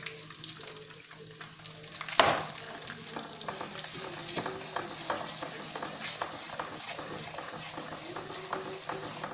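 Ground fennel and fenugreek powder frying in hot mustard oil in a non-stick kadhai, crackling and sizzling as it is stirred with a silicone spatula. There is one sharp knock about two seconds in.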